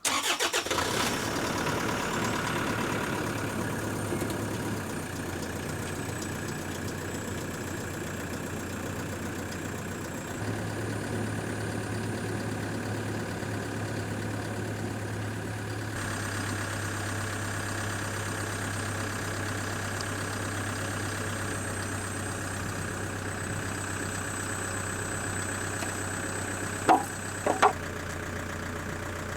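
A vehicle engine running steadily, with two sharp clicks near the end.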